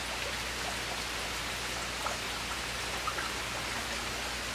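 Steady rain falling, with a couple of louder drops about two and three seconds in.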